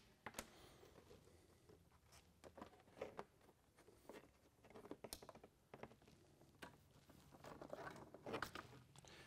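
Faint, scattered clicks and rustles of an electrical wiring harness in woven sleeving being handled and fed along plastic panels.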